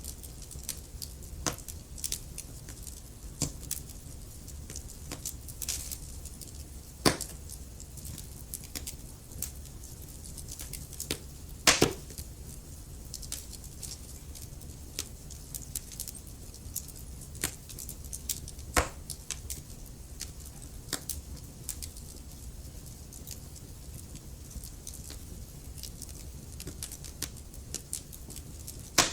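Wood fire in a fireplace crackling: a steady stream of small pops and snaps over a low rumble of the burning, with a few louder pops, the loudest about twelve seconds in.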